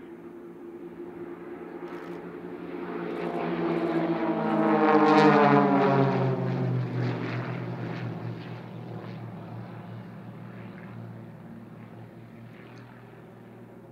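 A four-ship formation of Extra 300-family aerobatic propeller planes passing overhead: the engines' drone swells to its loudest about five seconds in, then drops in pitch and fades away as the formation passes.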